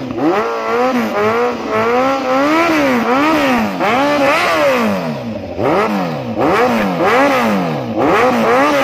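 Kawasaki Z900's inline-four engine revved in quick, repeated throttle blips through a custom stainless header and SC Project slip-on silencer. The pitch rises and falls about once or twice a second.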